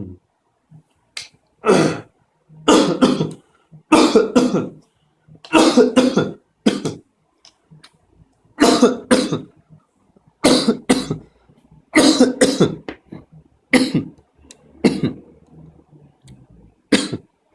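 A person coughing over and over: about a dozen short coughs, some in quick pairs, with throat clearing between them.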